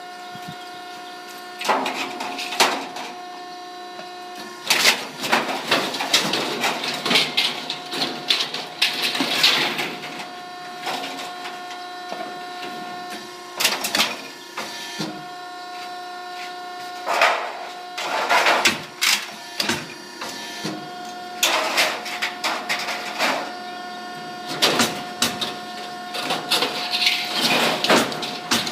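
Electric-over-hydraulic power unit of a portable scrap baler humming steadily, with frequent irregular clanks and crashes of scrap copper sheet being handled.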